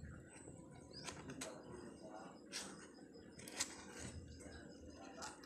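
Newborn kittens suckling at their mother cat: faint, scattered wet clicks and smacks, with a sharper click about three and a half seconds in.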